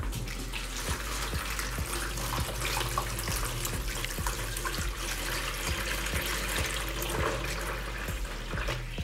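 Water pouring in a steady stream into a plastic basin that already holds water, a continuous splashing that starts right at the beginning and dies away at the very end.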